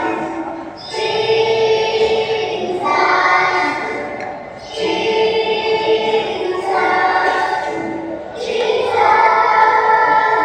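Pre-school choir of three- and four-year-olds singing together, in phrases of about three seconds with short breaks between them.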